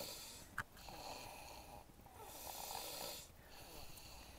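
A sleeping girl snoring faintly, two long noisy breaths with a pause between them and a third beginning near the end. A short click comes about half a second in.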